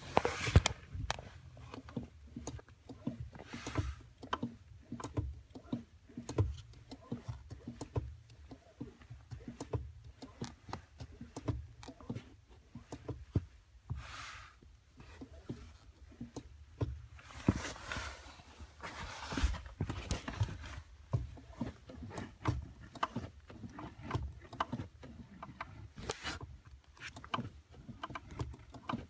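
Clutch pedal of a 2015 Subaru WRX STI squeaking as it is worked again and again, with many clicks and knocks over a low steady hum.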